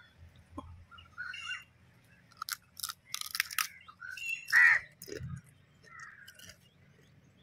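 Crisp cracking and crunching of sea crab shell as it is bitten and chewed, in quick clicks for about a second. About four and a half seconds in, a crow caws once loudly.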